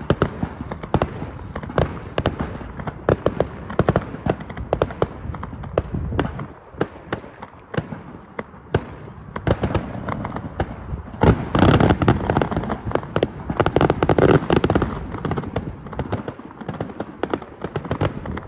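Fireworks display: a rapid run of bangs and crackling that thins out briefly after about six seconds, then a denser, louder barrage in the second half.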